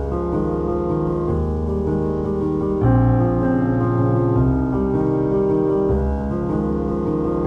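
Background piano music with held notes and chords changing every second or so.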